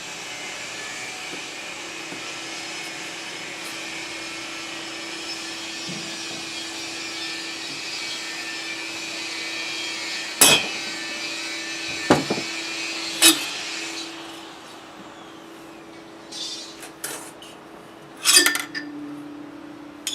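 A steady machine whir with a low hum runs in the workshop and cuts out about fourteen seconds in. Over it come sharp metallic knocks and clinks of tools and engine parts during a scooter engine teardown, with a few more clinks near the end.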